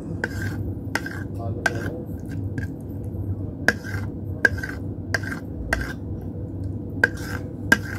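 Small knife blade clicking against a ceramic plate as it cuts set green gulaman jelly into thin strips. The clicks are sharp and irregular, roughly one or two a second, each with a short ring, over a low steady hum.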